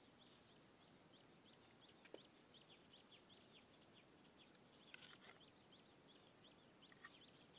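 Faint outdoor ambience of a steady high-pitched insect trill that breaks off briefly twice, with scattered short falling chirps over it.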